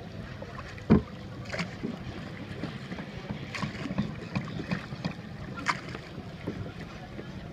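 Sounds aboard a river boat under way: a steady hiss with scattered knocks and clicks, the loudest a single thump about a second in.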